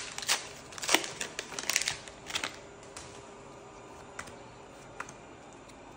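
Trading cards being flicked and slid against each other in the hands: a quick run of sharp clicks and rustles over the first couple of seconds, then just a couple of faint ticks.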